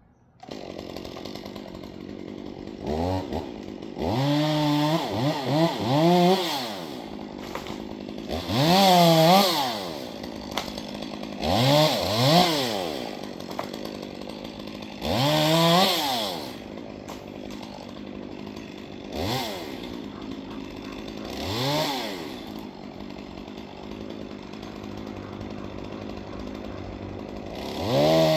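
A chainsaw catches and idles, then is revved again and again, each rev rising and falling back to idle. Near the end it is held at high revs.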